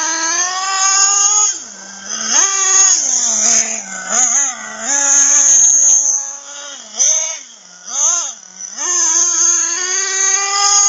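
3.5 cc nitro engine of an RC buggy, high-pitched and buzzing, revving in a string of throttle bursts: the pitch climbs, holds and drops back about seven times, with a couple of short blips near the middle and longer pulls at the start, around the middle and toward the end.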